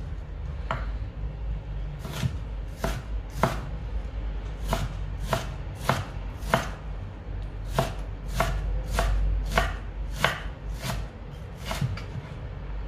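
Kitchen knife chopping vegetables on a cutting board, in slow, even strokes of roughly one to two a second with a couple of short pauses.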